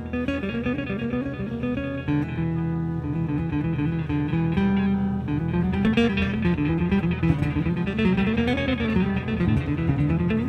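Recorded jazz septet playing, with electric guitar to the fore. A line of notes winds up and down, and drum hits come in the middle of the passage.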